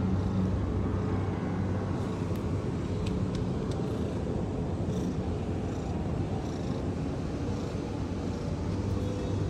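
Domestic cat purring in a steady low rumble.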